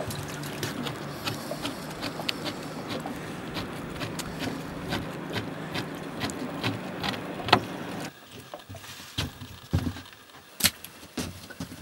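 A knife tapping repeatedly on a plastic cutting board as raw Arctic char fillets are scored, many sharp taps over a steady low hum. About eight seconds in the hum drops away abruptly, leaving a few scattered knocks.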